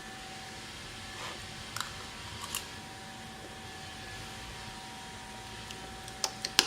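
A few light clinks of a spoon against a bowl, a couple early on and a couple near the end, over a steady faint hum.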